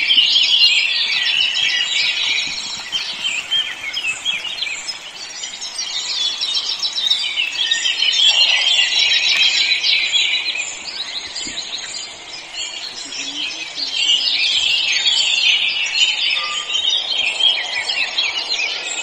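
A dense chorus of many birds chirping and calling at once, growing louder and softer in turns.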